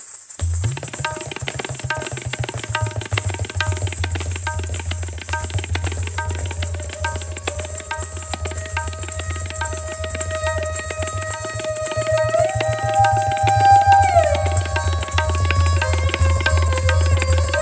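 Hindustani classical instrumental music: rapid tabla strokes over a steady low drone, with a sustained melodic line that steps up in pitch about twelve seconds in and drops back about two seconds later.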